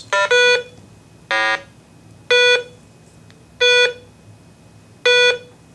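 RATH Smartphone 5 emergency phone's speaker sounding its five-tone connection self-test: beep, then a lower, buzzier blat, then beep, beep, beep, about a second and a half apart. The blat marks the LED as not hooked up; the other beeps show power, microphone, speaker and battery backup connected properly.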